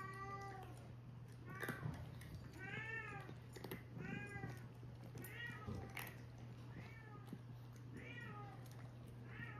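A domestic cat meowing over and over, about eight short meows a little over a second apart, each rising then falling in pitch. A few sharp clicks fall between the meows over a steady low hum.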